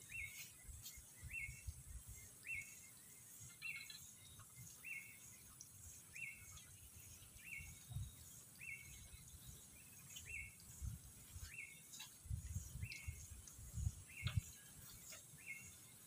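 A short high chirp repeats roughly once a second over a steady high insect hiss. Irregular low thumps are loudest about three-quarters of the way through.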